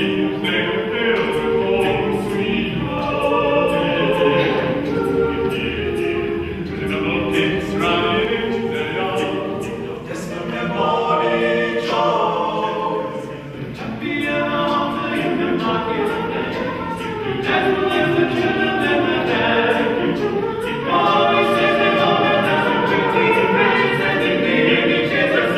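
Male a cappella ensemble of eight voices singing in close harmony, with mouth-made percussion ticks running under the chords.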